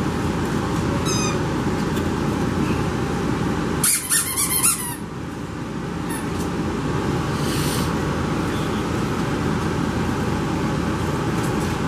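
Squeaky dog toy squeaking as French Bulldog puppies chew and tug on it: one short squeak about a second in and a louder run of squeaks about four seconds in, over a steady background hum.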